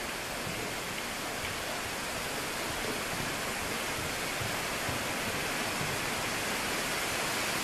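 Steady, even hiss with no pitch or rhythm, holding at one level throughout.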